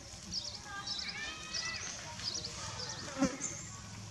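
Baby monkey crying in repeated high-pitched squeals and chirps, with one sharp knock about three seconds in.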